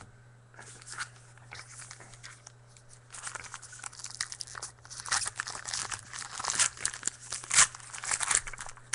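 A trading-card pack wrapper being torn open and crinkled by hand, in quick irregular crackles that start about three seconds in and grow louder, with the loudest tear near the end. A steady low electrical hum runs underneath.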